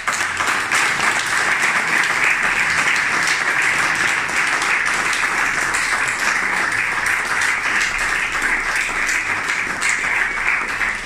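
A group of people applauding, many hands clapping at once; it starts suddenly and dies away near the end.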